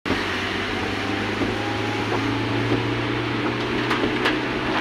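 A vehicle engine running steadily with a low, even hum and a hiss of noise over it, with a couple of clicks about four seconds in.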